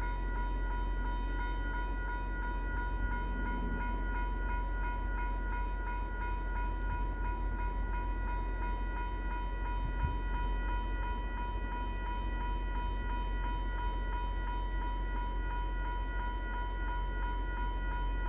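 GO Transit diesel locomotive running steadily: a deep rumble with a constant high whine that stays unchanged throughout.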